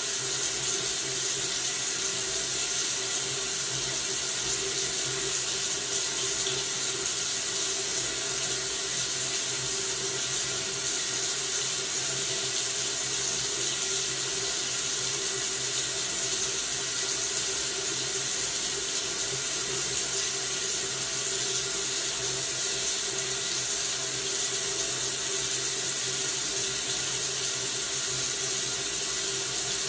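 Household faucet running tap water into a sink: a steady, unbroken hiss of falling water.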